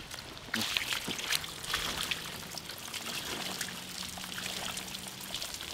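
Water poured from a bucket splashing and trickling over a skinned crocodile carcass as it is washed.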